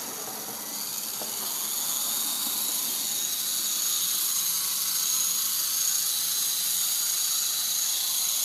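Small electric RC helicopter's motor and rotors running at a high-pitched whine, growing louder over the first few seconds and then holding steady.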